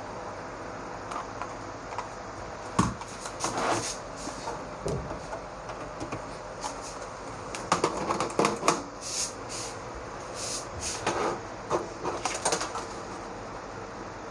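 Scattered clicks and short bursts of clatter from a mouse and keyboard being used on a desktop PC, over a steady hum. The densest bursts come about a third of the way in and again past the middle.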